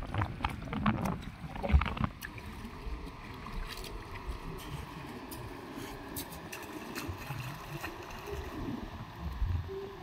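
Wind rumbling on the microphone over shallow seawater, with small splashes and clicks in the first two seconds as a hand moves in the water.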